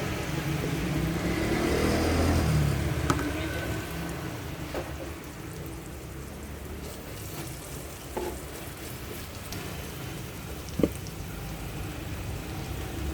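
Food sizzling as it fries in an electric rice cooker's inner pot, with a few sharp clicks through the sizzle.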